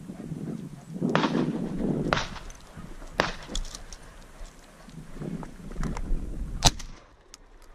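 Footsteps and rustling on rocky, grassy ground with a few sharp knocks, then near the end a single sharp shotgun shot, the loudest sound, fired at a flushed partridge.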